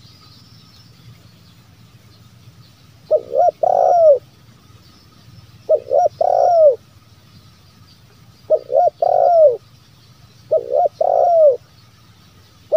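Spotted dove (terkukur) cooing: four phrases about two to three seconds apart, starting about three seconds in, each two quick short notes followed by a longer falling coo. It is the call of a decoy dove, the kind used to lure wild spotted doves.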